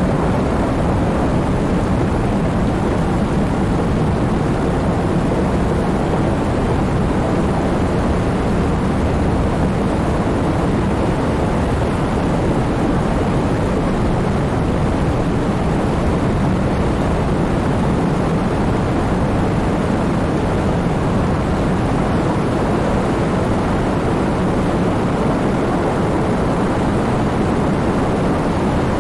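Heavy rain falling steadily, a dense, even noise weighted toward the low end, with no separate drops or claps standing out.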